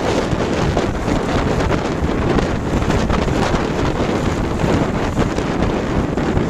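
Strong wind buffeting a smartphone microphone fixed to a small sailboat's gunwale, a steady gusty rumble and flutter, with water rushing along the hull as the boat sails in a strong breeze.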